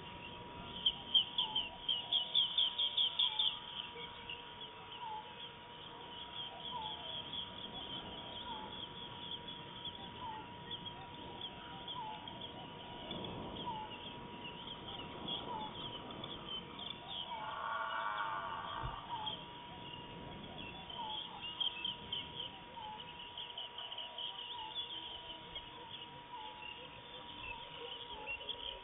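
Birds and insects calling: rapid chirping trills repeat throughout, a short note recurs about every second and a half, and a louder call stands out about two-thirds of the way through.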